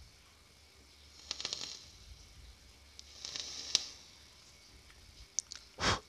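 Rebuildable dripping atomizer with a freshly wicked five-wrap 22 AWG Ni80 coil being fired and drawn on: two short draws of crackling, sizzling hiss as the wet cotton and coil vaporise the e-liquid. A few sharp clicks follow, and a short loud whoosh comes near the end.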